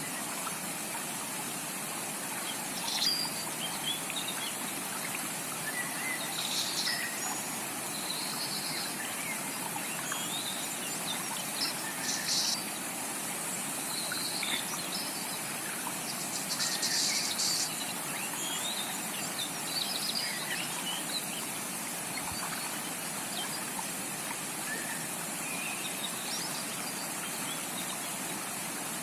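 Steady rush of a rainforest stream, with many tropical birds giving short chirps and calls over it, some louder than others.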